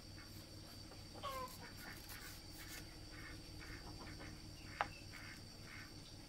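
Farmyard chickens clucking faintly in short calls, the clearest about a second in, over a steady background hum, with one sharp click near five seconds.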